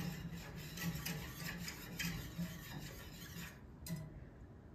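A whisk scraping around the bottom of a saucepan of milk and coarse-ground einkorn, a soft rasping stroke about two or three times a second, fading near the end.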